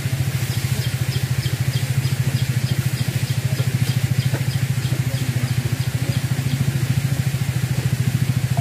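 A small engine running steadily at idle: a low, even, rapidly pulsing hum. Faint high ticks repeat about three times a second over it.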